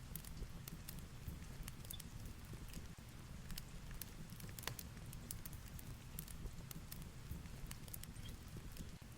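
Fireplace crackling with scattered sharp pops over a low, steady rumble of storm rain and wind.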